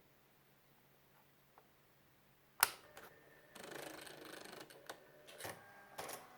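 Brother EP150 thermal electronic typewriter in use: a sharp click about two and a half seconds in, then about a second of steady mechanical whirring, then a few separate clicks.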